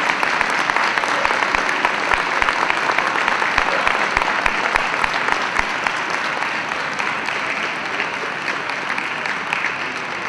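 Audience applauding, steady clapping that slowly dies down toward the end.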